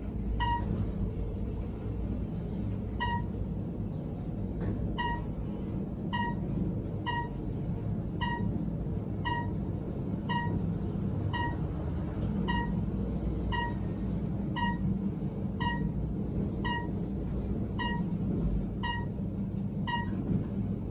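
Otis scenic elevator car running up the hoistway with a steady low rumble, and a short electronic beep about once a second, the car's signal as it passes each floor.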